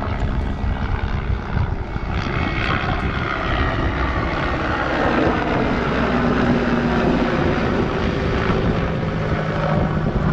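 A motor droning loudly, its pitch dropping a little toward the end.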